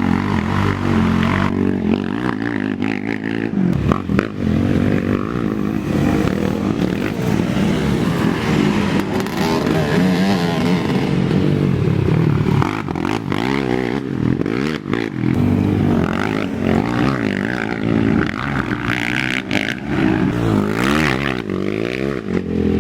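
Several racing ATV engines revving up and down together, their pitches rising and falling over one another as the machines accelerate and back off.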